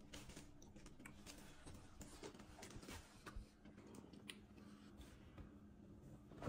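Faint, scattered clicks and light scrapes of a metal fork and spoon against a glass baking dish over a low room hum, with one sharper click near the end.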